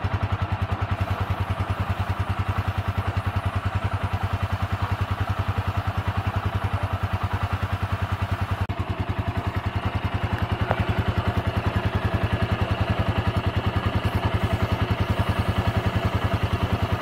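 RKS RN 180 motorcycle engine idling with a steady, rapid, even pulse, run so that the chain turns while aerosol chain lube is sprayed onto it. The beat grows a little louder about two-thirds of the way through.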